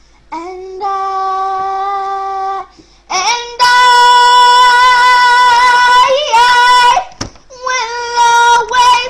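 A young girl singing long held notes: a lower one first, then from about three seconds in a higher, much louder note held for nearly three seconds, followed by shorter held notes at the same pitch.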